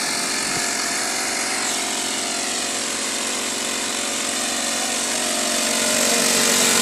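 Small engines of two backpack power sprayers running steadily at high speed, with the hiss of liquid mist spraying from the hose lances. The engine sound grows a little louder near the end.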